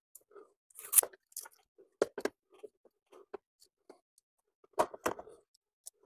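Hand-handling noise of blue painter's tape and a plastic license-plate transponder bracket against a car's plastic grille mesh: scattered light clicks, taps and rustles, the loudest about a second in and a small cluster near the end.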